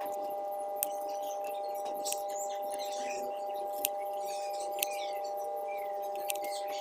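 A knife cutting a sweet potato tuber into pieces on a wooden board, with a few sharp clicks as the blade strikes the board. A steady two-note hum runs underneath.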